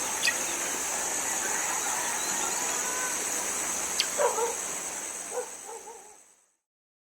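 A dog barking a few times about four seconds in and again a second later, over a steady high-pitched hiss and a few sharp clicks; the sound fades out near the end.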